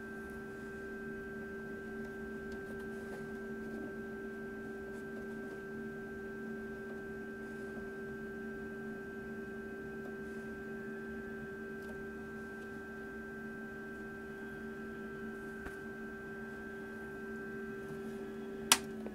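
Macintosh SE/30 running: a steady hum from its cooling fan with several steady tones. Near the end comes one sharp click as the power switch on the back is flipped off.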